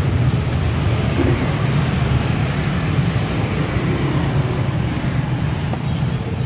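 Road traffic: a steady low engine rumble with a noisy hiss over it, holding level throughout.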